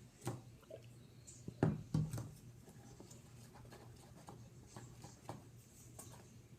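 Slime mixture being stirred in a bowl: irregular light scraping and tapping, with two louder knocks a little under two seconds in.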